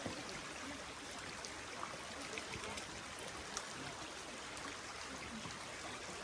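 Creek water flowing over rocks: a steady, even rush of running water, with a few faint ticks over it.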